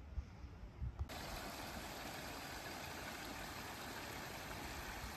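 Steady rush of water running over rocks in a small man-made stream, starting abruptly about a second in. Before it, a few low thumps.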